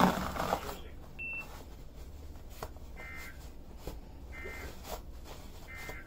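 Weather radio sending the Emergency Alert System end-of-message code: three short, identical electronic data bursts about a second and a half apart, after a single short high beep about a second in, marking the end of the warning broadcast.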